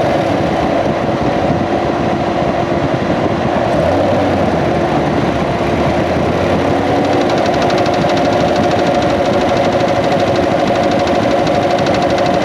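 2016 Corvette C7 Z51's 6.2-litre LT1 V8 running steadily, heard close up from inside the engine compartment, with a fast, even ticking over its running sound. This is the mystery noise that the owner suspects comes from the fuel pump or fuel line; the belt tensioner has already been replaced.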